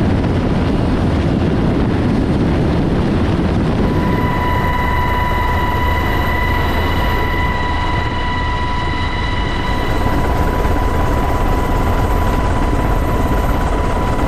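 Seahawk helicopter running, a loud steady rotor and engine din with a strong low rumble. About four seconds in, a steady high whine joins it.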